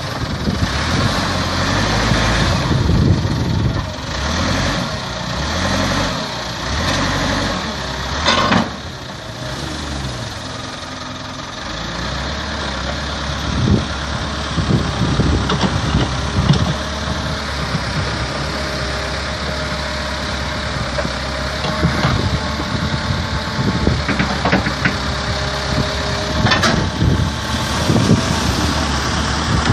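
Vehicle engine running, its pitch going up and down through the first dozen seconds as it is revved, then settling into a steadier, lower drone. Two sharp knocks, about eight seconds in and near the end.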